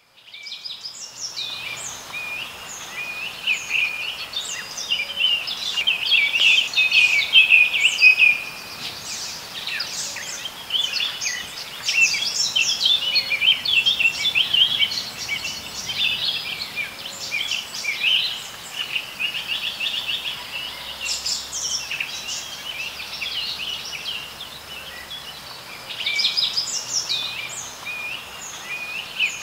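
Birds singing: a dense, overlapping stream of quick chirps and trills.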